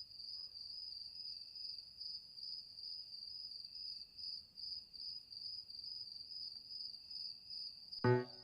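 Crickets chirping in a steady high-pitched trill that pulses in a regular rhythm. Piano notes come in near the end.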